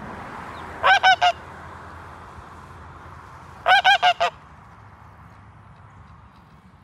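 A goose honking in two quick series: three loud honks about a second in, then four more a few seconds later.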